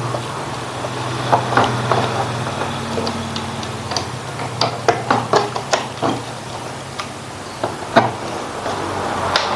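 Small clicks and taps of wires and plug connectors being handled and fitted onto a CRT TV's chassis board, in scattered bunches, over a steady low hum.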